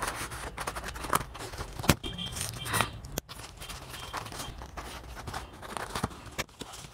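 Scissors snipping through packing tape on a cardboard box, with the cardboard flaps scraping and rustling as they are pulled open; a sharp click about two seconds in.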